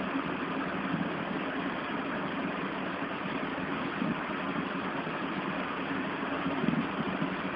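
Steady mechanical hum with a hiss over it, from a running motor.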